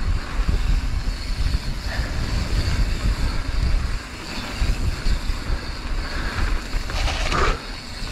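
Wind buffeting an action camera's microphone on a mountain bike riding downhill, over a choppy rumble from the tyres and bike on the trail surface.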